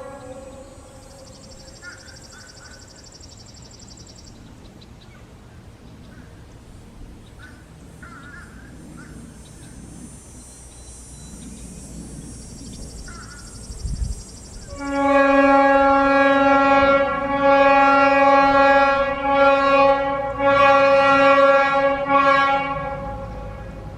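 Leslie S-5T five-chime locomotive air horn blowing one long blast from about 15 s to 23 s, with a few brief dips. A low thump comes just before it. The owner finds the chord disappointing and puts it down to the bell chambers, which need work.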